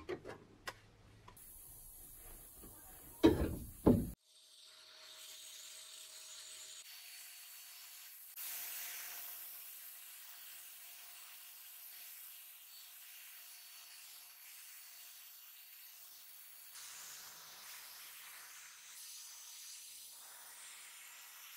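Pressed-steel toy parts clinking as they are handled on a wooden workbench, with two louder clatters about three and four seconds in. Then a sandblast gun hisses steadily inside a blast cabinet as it strips rust and paint from a steel wing panel, louder from about eight seconds in.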